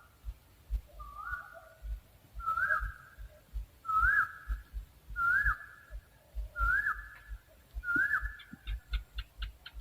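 An owl calling: a series of six whistled notes, each rising quickly and then holding, repeated about every second and a half. Near the end comes a quick run of short, sharp higher notes, about six a second.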